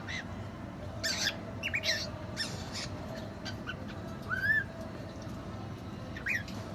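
Cockatiel giving a series of short chirps and squawks, with one longer rising-and-falling whistled call about four seconds in.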